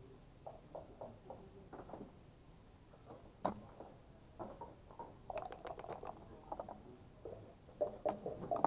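Backgammon checkers clicking on the board and dice rolled across it, heard as scattered sharp clicks, a quick rattle of clicks a little past the middle, and another cluster of clicks near the end.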